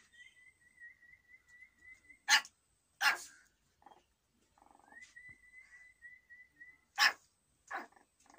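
Young puppies yipping: four short, sharp yaps in two pairs, each pair coming after a thin, wavering high whine that lasts about two seconds.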